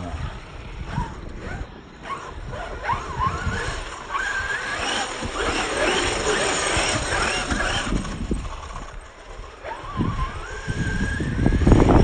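Small electric radio-controlled cars running, their motors whining up and down in pitch with the throttle over a rough rumble, which gets louder near the end.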